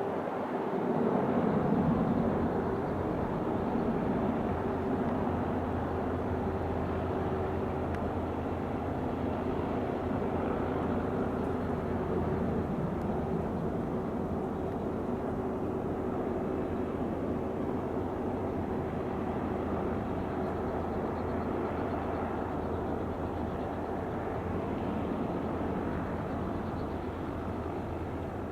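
Airbus Helicopters EC225LP Super Puma's twin turboshaft engines and rotor running steadily, a constant noise with a steady hum, swelling briefly a second or two in.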